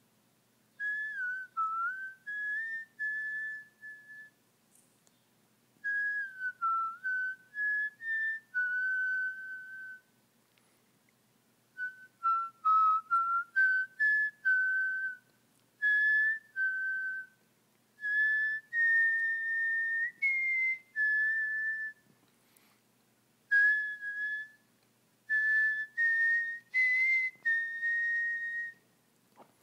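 A person whistling a tune through the lips: short phrases of several notes each, gliding and stepping in pitch, with pauses of a second or two between phrases.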